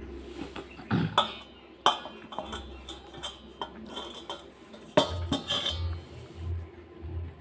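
Metal cookware and utensils knocking and clinking a handful of times, with short bright ringing after the strikes: two bunches of knocks, about a second in and about five seconds in. A low pulsing music beat runs underneath.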